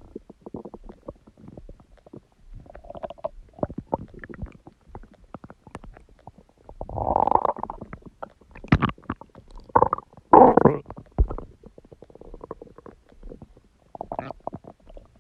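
Human stomach rumbling and gurgling in irregular bursts, with many small pops and clicks in between. The loudest, longest gurgles come about halfway through and again a few seconds later.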